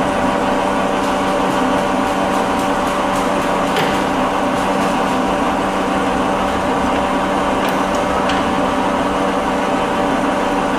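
Warner & Swasey No. 5 ram-type turret lathe running under power, a steady machine hum, with a few faint clicks as its hand levers are worked.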